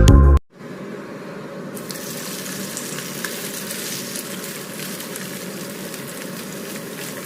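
Food frying in hot oil in a pan, a steady sizzle. A burst of music cuts off sharply just as it begins.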